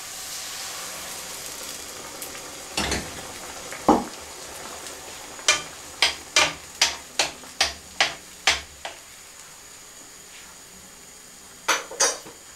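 A utensil stirring and knocking against a frying pan of onion, hot pepper and egg over a faint sizzle, with a quick run of about nine knocks in the middle and two more near the end.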